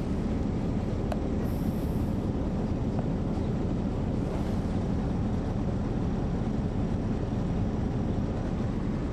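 Caterpillar C13 ACERT six-cylinder diesel of an MCI D4500CL coach running steadily, heard from inside the bus as an even, deep rumble.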